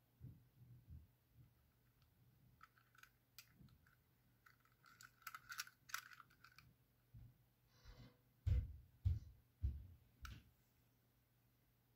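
Handling noise from a Märklin model boxcar being turned over in the fingers: scattered light clicks and taps, then four dull thumps in the second half, the loudest sounds here.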